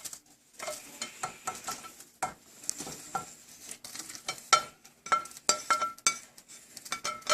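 A spoon clinking and scraping against a pot in a quick, irregular run of taps, some of them ringing briefly, as shredded chicken is spooned into the noodle soup.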